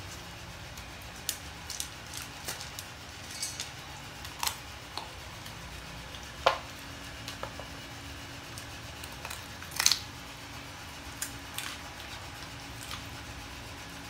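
Belgian Malinois chewing raw chicken feet: irregular crunches and clicks of teeth on bone and gristle, the loudest two about six and a half and ten seconds in.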